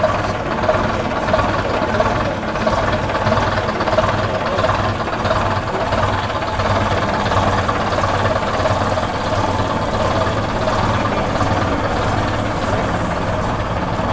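A heavy diesel engine idling steadily, with a dense, even clatter.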